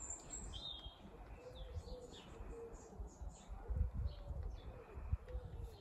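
A pigeon cooing in a repeated phrase of low, rounded coos, with small birds chirping high above it. A few low thumps sit underneath.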